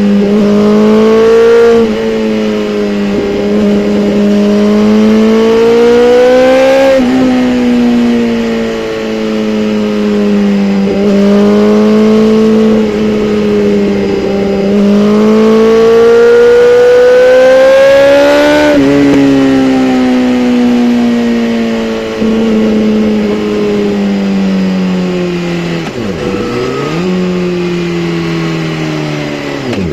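2017 BMW S1000RR's inline-four engine running continuously under load. Its pitch climbs and sinks over several seconds at a time, with sudden drops as the revs change, and a deeper dip near the end.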